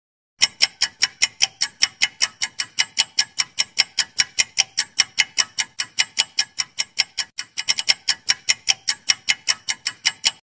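Clock-ticking sound effect for a quiz countdown timer: even, sharp ticks at about four or five a second, with a brief stumble in the rhythm about three quarters of the way through, stopping just before the end.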